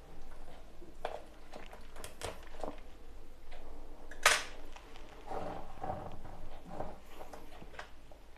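Close handling noise: fingers and orchid leaves rubbing and rustling right by the microphone, with scattered small clicks and one sharp click about four seconds in.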